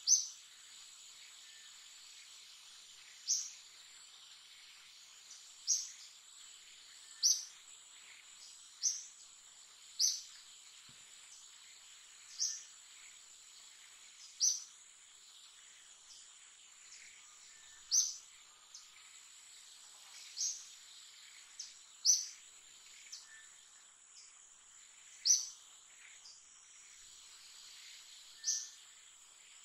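Steady high-pitched insect drone, with a short, sharp high chirp repeating every one to three seconds.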